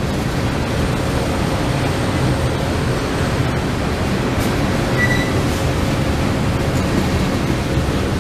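Freight train of covered hoppers, tank cars and boxcars rolling past close by: a steady loud rumble and rush of wheels on rail, with a brief high squeal about five seconds in.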